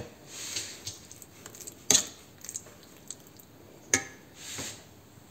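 Metal spoon spreading mayonnaise over grated carrot in a metal springform pan: soft scraping and smearing, with two sharp clinks of the spoon against the pan about two seconds apart.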